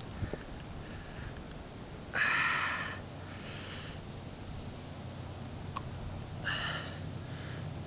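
A person sniffing or drawing sharp breaths through the nose, twice in quick succession about two seconds in, the first the loudest, and once more near the end.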